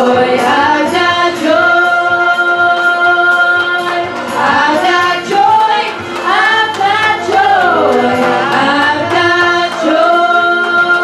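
Gospel song sung by a church worship singer with the congregation, with long held notes and sliding runs.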